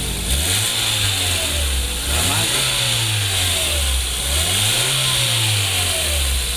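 Hyundai Grand Avega engine and exhaust, revved up three times and falling back to idle, heard from under the car at the newly fitted braided flexible exhaust pipe. The exhaust sounds smooth again with the leaking flexible replaced.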